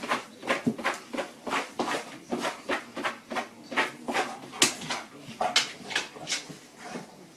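A dog making a quick series of short, noisy sounds, about two to three a second.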